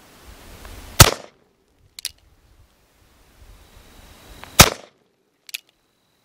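Two shots from a Cimarron 1860 Army Richards Type II conversion single-action revolver in .45 Long Colt, about three and a half seconds apart. Each shot is followed about a second later by a lighter click as the hammer is cocked for the next shot.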